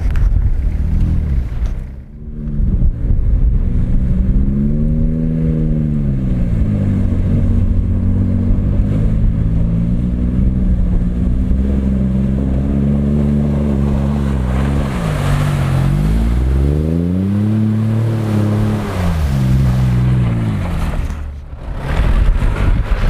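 Off-road SUV engine revving up and dropping back again and again while driving through slushy meltwater, the pitch rising and falling over a couple of seconds each time.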